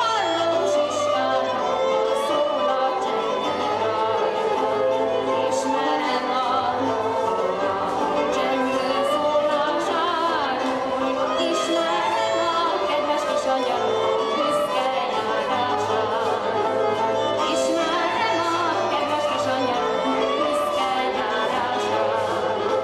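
Hungarian folk music with fiddle and singing, playing steadily, with a few sharp taps heard over it.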